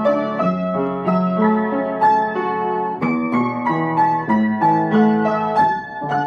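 Piano music: a melody of single struck notes, a few a second, over a lower line of longer held notes.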